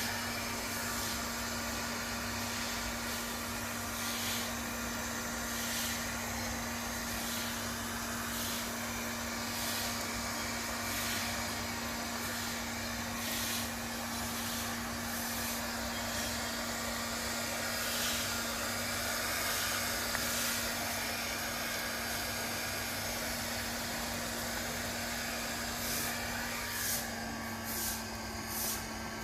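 Electric hair dryer running steadily with a constant hum and rushing air, drying a freshly washed puppy; the rush of air swells briefly every second or so.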